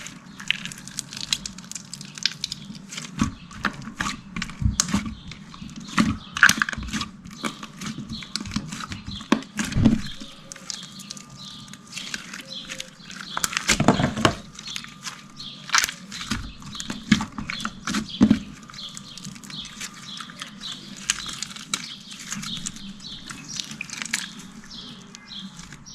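Coloured slime being squished and handled by hand, making many small sticky clicks and pops at an irregular pace.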